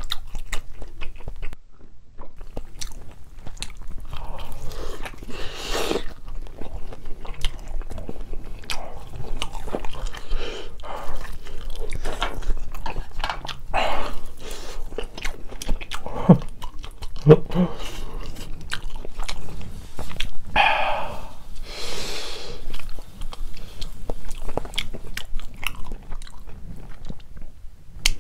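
Close-miked chewing and biting of a sauce-coated chunk of canned Spam: wet mouth clicks and smacks throughout, with a few louder mouth sounds along the way.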